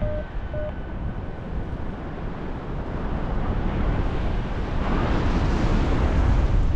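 Airflow buffeting the microphone of a paraglider pilot in flight, a steady low rumble that grows louder and hissier from about five seconds in. Right at the start, two short beeps from the flight instrument's variometer.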